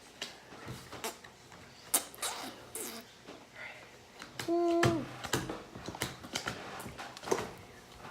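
Slime being squished and worked by hand, giving a string of irregular wet clicks and pops. A short voiced hum or note sounds once, about halfway through.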